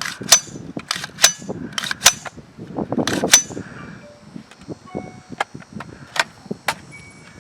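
A string of gunshots, sharp single cracks at uneven intervals, about seven in all. The loudest four come in the first three and a half seconds and the later ones are fainter.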